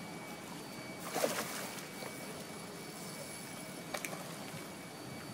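Steady low background hum with a faint high whine. About a second in there is a brief rush of noise, and near four seconds a short click.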